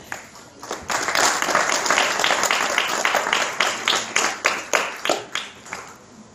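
Applause: a dense patter of many hands clapping starts about a second in, then thins to separate claps and dies away near the end.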